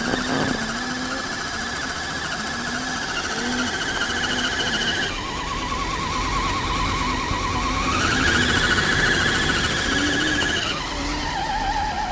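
Axial Honcho RC crawler's electric motor and geared drivetrain whining under throttle as its wheels spin in the dirt. The pitch drops about five seconds in, climbs back a few seconds later, and drops again near the end as the speed changes.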